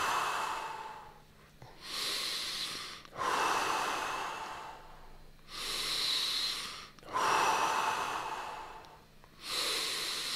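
A person breathing deeply and slowly into the microphone during a stretch, about three full breaths, each a shorter in-breath followed straight away by a longer out-breath, with brief pauses between them.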